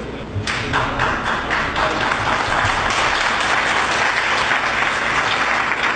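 Audience applauding; the clapping starts about half a second in and keeps up steadily.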